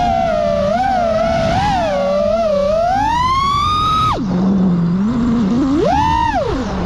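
FPV quadcopter's Emax LS 2207 brushless motors and props whining, the pitch rising and falling with throttle. About four seconds in the throttle is cut and the whine drops low; near the end a short punch of throttle sends it up and back down.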